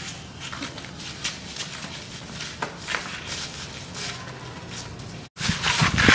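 Footsteps in sandals scuffing on a paved lane: scattered soft steps over a steady background hum. About five seconds in, the sound cuts out abruptly and is replaced by a louder rustling, rumbling noise.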